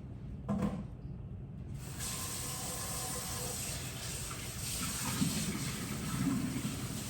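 A short knock, then pancake batter starting to sizzle in a hot pan as a steady hiss that begins suddenly about two seconds in.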